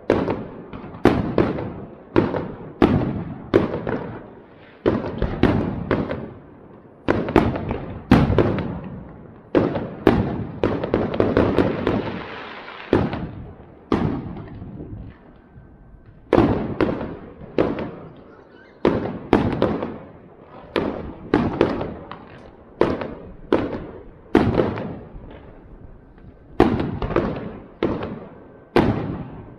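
Aerial fireworks bursting overhead in a rapid series of sharp bangs, each trailing off in a short echo, about one or two a second. For a few seconds near the middle the bangs run together into a continuous crackle, followed by a brief lull before the bangs resume.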